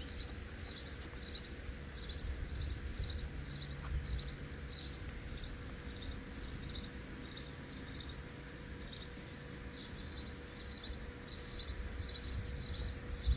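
A short, high chirp from a small creature, repeating about twice a second, over a low rumble.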